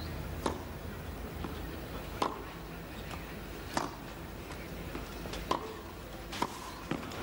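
Tennis ball struck by rackets in a rally: six sharp pocks, about one and a half to two seconds apart at first, the last two closer together as play moves to the net, over a steady low background hum.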